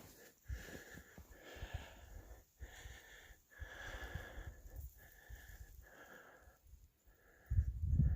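A person's heavy, rhythmic breathing, about one breath a second, hissing in and out as if on a hard climb. A loud low rumble starts near the end.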